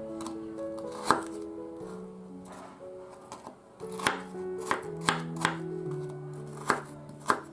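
Knife chopping on a cutting board: about seven sharp, irregularly spaced knocks over background music.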